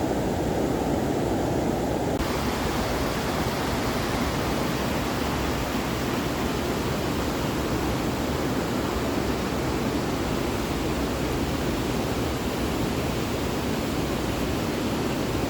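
Waterfall: a steady rush of falling water. About two seconds in it suddenly turns brighter and more hissy.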